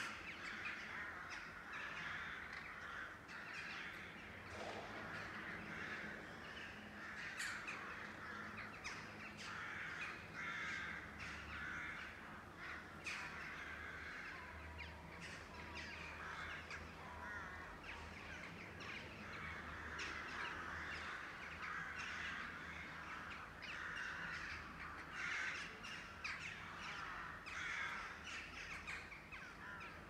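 A large flock of crows calling overhead: a dense, continuous chorus of many overlapping caws, with single sharper calls standing out now and then.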